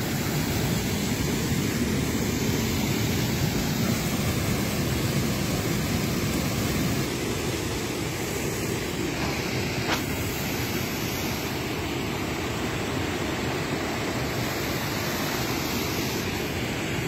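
Water pouring over an overflowing small dam: a steady rushing noise.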